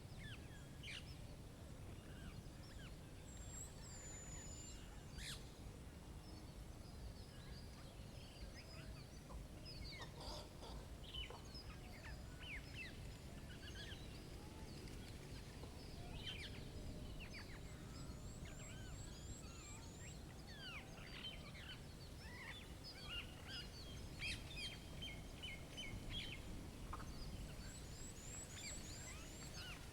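Birds chirping and calling outdoors: many short scattered calls, with a couple of quick high trills, over a faint low rumble of background noise.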